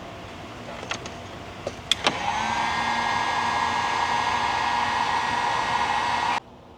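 A few clicks, then a small electric motor spins up about two seconds in and runs as a steady whine until it cuts off suddenly near the end.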